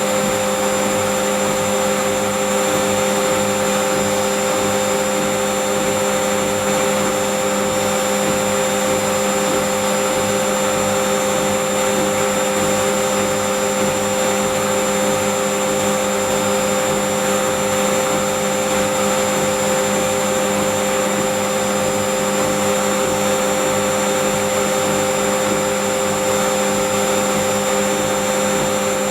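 Whirlpool Indiana 1400 washing machine in its high-speed spin, the final stage of the wash cycle: a steady motor whine over an even rushing hiss, holding one speed throughout.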